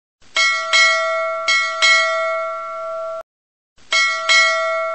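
Ship's bell struck in pairs of two quick strokes, each note ringing on. After two pairs the ringing cuts off suddenly, and after a short gap a new pair of strokes begins.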